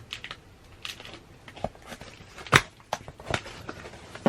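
Packaging being handled while photo cards are unpacked: a run of crinkles and clicks, the loudest a sharp snap about two and a half seconds in.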